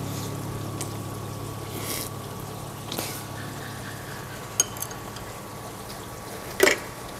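Shabu hot pot broth bubbling steadily, with a few light clicks and one short, louder noise near the end.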